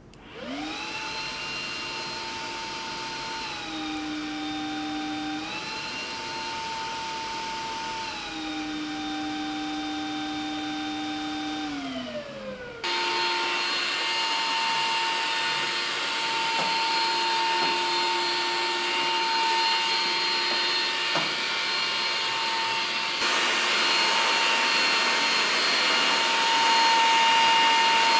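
Makita DVC260 cordless vacuum cleaner motor switching on and spinning up to a whine. Its pitch steps down and back up, then slides down and winds down about halfway through. A louder steady whine with rushing air follows, growing louder again near the end.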